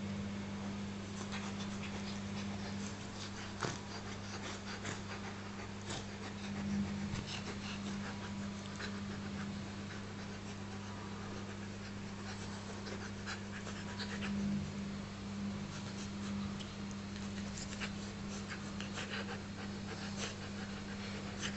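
Australian Shepherd dog panting, with scattered light clicks over a steady low hum.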